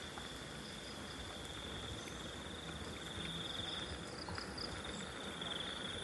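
Insect trilling, a steady high-pitched pulsing trill from the forest, which breaks off briefly about four seconds in and then resumes.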